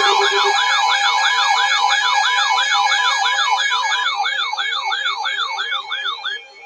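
Electronic yelp-style siren alert tone: a loud, rapidly repeated rising sweep, a little under three a second, that stops shortly before the end. A steady lower tone underneath cuts off about half a second in.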